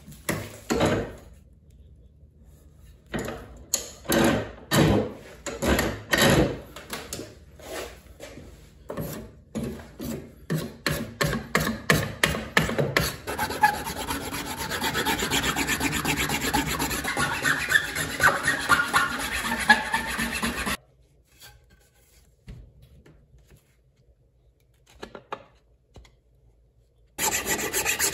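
Hand tools shaping a wooden hatchet handle. First come separate scraping strokes across the wood, one or two a second. Then a rasp files the handle rapidly and continuously, stops for several seconds with only a few small clicks, and starts again near the end.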